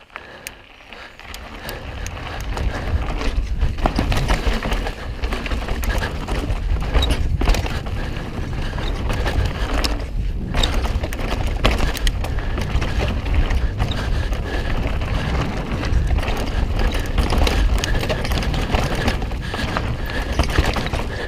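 Mountain bike riding down a dirt flow trail: wind rumbling heavily on the camera microphone over tyre noise, with a dense run of clicks and rattles from the bike. It grows louder over the first two seconds, then stays loud.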